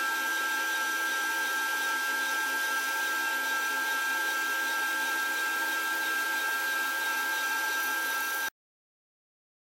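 Cordless drill running at a steady speed, spinning a wooden rod in a rod-making jig: an even motor whine. It stops abruptly about eight and a half seconds in.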